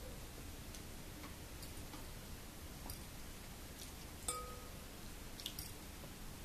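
Metal spoon tapping and clicking against a glass bowl of noodle soup: scattered light clicks, with one clear ringing clink about four seconds in.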